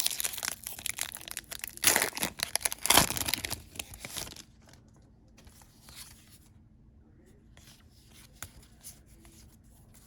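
A foil Pokémon booster pack wrapper being torn open and crinkled, loud and crackling for about the first four seconds. After that it goes quiet, with only faint scattered ticks.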